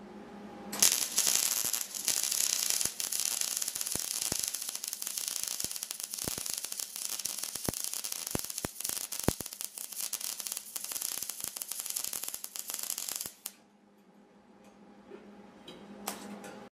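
MIG welding arc crackling steadily, with many sharp pops. It strikes about a second in, runs for about twelve seconds and cuts off, then strikes again briefly just before the end.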